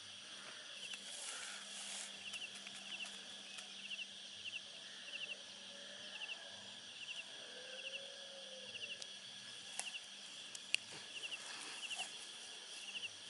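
Faint high chirps from a calling animal, repeated at a steady pace of about three every two seconds, over a steady low hum. A few soft clicks and rustles come near the end as the wet cast net is handled.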